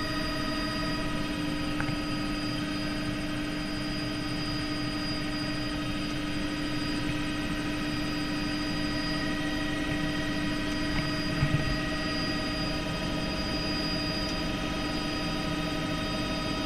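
Helicopter engine and rotor running steadily, heard from inside the cabin as it lifts off and climbs: a constant rushing drone with steady humming tones. A couple of brief low thumps sound about two-thirds of the way through.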